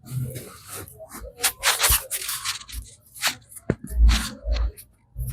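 Hands massaging a head: irregular rubbing and scrubbing of hair and scalp, with a few sharp taps and some duller thuds about four seconds in.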